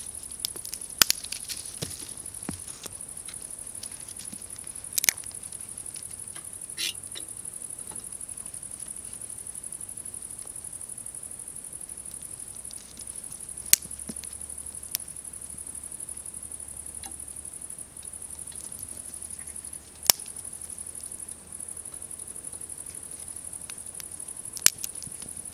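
Twigs burning in a small Firebox Nano wood stove, crackling with about half a dozen sharp pops, over a steady high-pitched chorus of insects.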